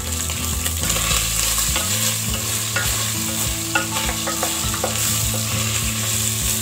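Beef chunks sizzling as they brown in a little oil in an aluminium pot, stirred and turned with a wooden spoon. Scattered clicks and scrapes of the spoon against the pot run over the steady frying hiss.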